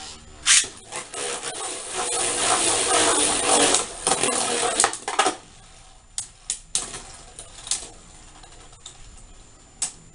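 Two Beyblade Burst tops, Judgement Joker and Noctimus, launched into a plastic stadium. There is a sharp snap about half a second in, then a few seconds of the spinning tops clattering and grinding against each other and the plastic floor, which dies away about five seconds in. A few separate clicks and knocks follow.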